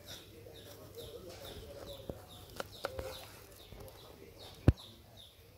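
Kitchen knife knocking on a plastic cutting board as vegetables are sliced: a few sharp knocks, the loudest near the end. Behind it a bird repeats a short falling call a couple of times a second.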